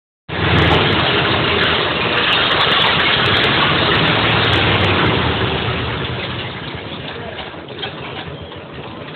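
Engine of a 1927 Ahrens-Fox fire engine running as the truck pulls out of the station bay. It is loud and steady at first, then grows quieter after about five seconds as the truck rolls out into the open.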